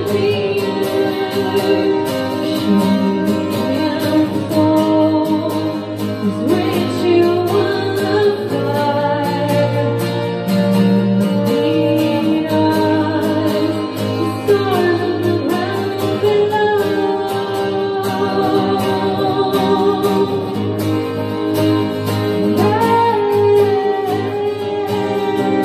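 A woman sings long, gliding notes into a microphone, accompanied by a strummed acoustic guitar.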